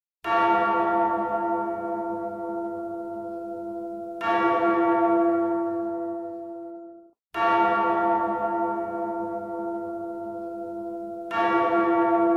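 A large bell tolling four times, each stroke ringing on and slowly fading before the next, about every three to four seconds.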